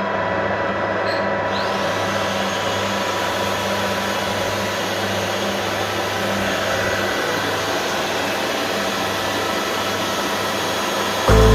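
Electric machine running steadily while polishing a Lada Kalina camshaft: a constant motor hum and hiss with several steady tones on top, with no change in speed.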